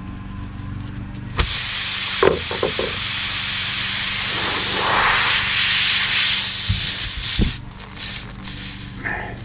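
Pressurised air hissing out of a punctured tire through the nail hole as the reamer is pulled out. It starts suddenly about a second and a half in, runs steadily for about six seconds and then stops, over a steady low hum.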